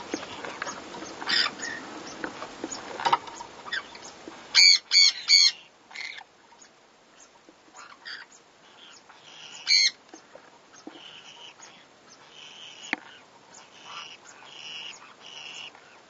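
Small parrots calling while mating: three loud short squawks in quick succession about five seconds in, a single squawk near ten seconds, then a run of soft repeated moaning calls.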